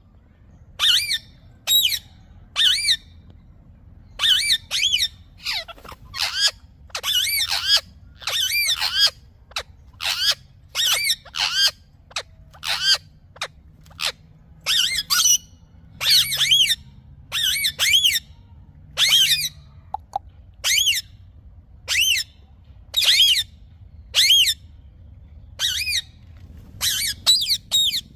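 Indian ringneck parakeet giving a long series of short, shrill squawking calls, roughly one a second, some in quick pairs.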